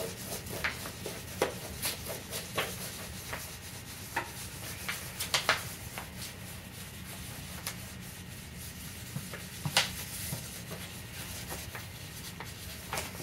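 Crayons rubbing back and forth on paper plates as two people color, with scattered light ticks from the crayons.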